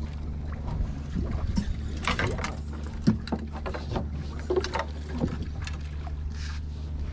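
A fishing boat's inboard engine running steadily at a low, even pitch, with scattered knocks and clatters on deck, the sharpest about three seconds in.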